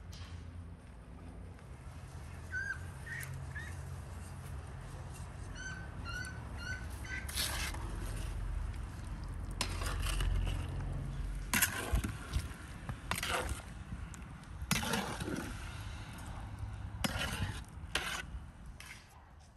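A long metal ladle stirring sugared fruit slices in a large metal cauldron, knocking and scraping against the pan in a run of sharp clinks from about seven seconds in. A few small bird chirps come in the first seven seconds, over a steady low rumble.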